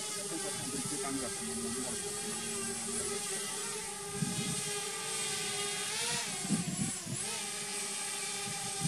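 Small quadcopter drone's propellers whining with a steady buzzing hum. The pitch wavers up and down about six seconds in as the drone manoeuvres, and a few low rumbles come through near the middle.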